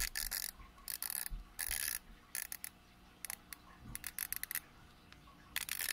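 Rotating dive bezel of an Omega Seamaster Professional 2220.80 being turned with a hose-clamped PVC bezel-removal tool, its ratchet clicking in about seven short runs of rapid clicks.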